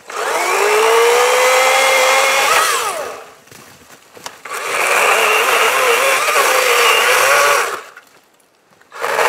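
Battery-powered electric chainsaw running in two bursts of a few seconds each, cutting a downed pine. The first rises in pitch as the chain spins up, then falls away; the second wavers in pitch as the chain works through the wood; a third burst starts near the end.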